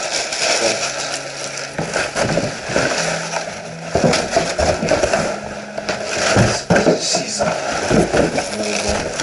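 Plastic wrapping film and cardboard packaging being handled and pulled about, crinkling and rustling, with a few knocks.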